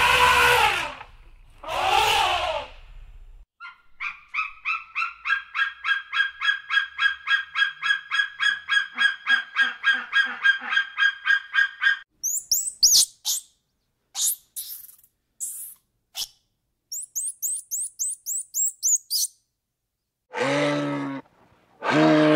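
A sequence of animal calls. First an elephant calls twice. Then a bird of prey gives a long rapid run of call notes, about four a second, followed by high thin chirps. Near the end a moose gives low, deep calls.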